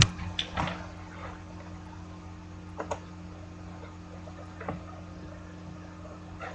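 A sharp knock at the start, then a few light clicks and handling noises over a steady low electrical hum.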